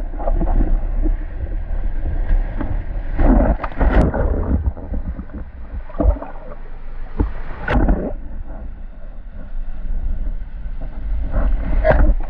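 Rushing surf and splashing water heard from an action camera held in a breaking wave, with wind buffeting the microphone in a low rumble. The water surges louder several times, loudest as the wave's spray engulfs the camera near the end.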